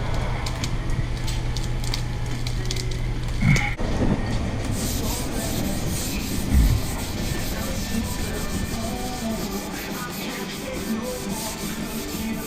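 Sanding on a car's primed body panels: a steady rubbing scrape that changes character about four seconds in.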